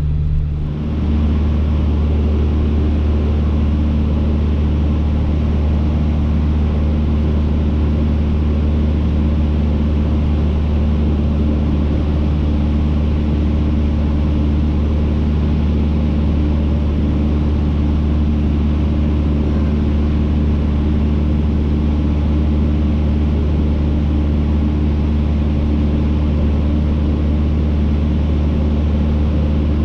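Cessna 152's four-cylinder Lycoming O-235 engine and two-blade propeller droning steadily at cruise power, a loud, even hum with a few low steady tones over a hiss of airflow.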